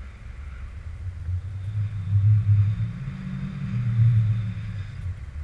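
Wind buffeting the microphone of a paraglider's action camera in flight: a low rumble that swells twice, about two and four seconds in.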